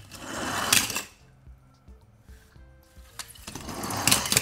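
Die-cast toy cars scraping and sliding across a plastic board, twice, each time building up and ending in a sharp clatter, over faint background music.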